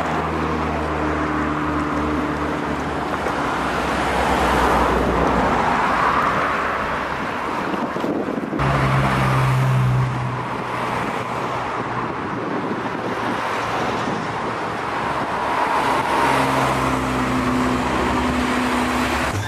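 Road traffic: car engines running and passing over a steady rush of road noise. The loudest engine comes about nine seconds in.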